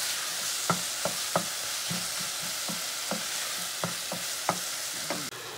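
Berbere and onion sauce sizzling in a nonstick saucepan as a wooden spoon stirs it, the spoon knocking and scraping against the pan about two to three times a second. The sizzle drops suddenly near the end.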